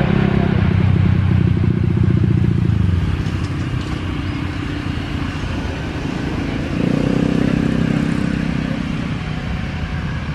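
Road vehicles passing close by: a car's engine loud for the first three seconds, then a motorcycle, then a light truck's engine coming in about seven seconds in.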